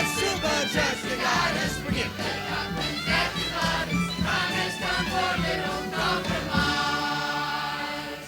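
Closing bars of a gospel choir number with accompaniment, ending on a long held chord that fades away at the end.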